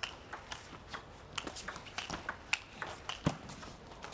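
Table tennis rally: the ball clicking sharply off rackets and table in quick, irregular succession, with a heavier thump about three seconds in.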